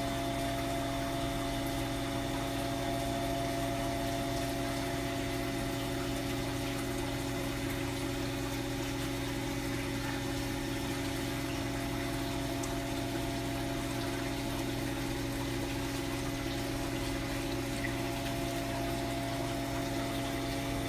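Aquarium pump running with a steady hum over a constant wash of moving water.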